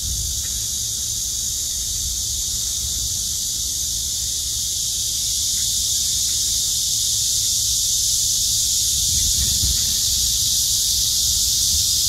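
A chorus of cicadas buzzing in one steady, high-pitched drone that grows slightly louder in the second half, over a low rumble.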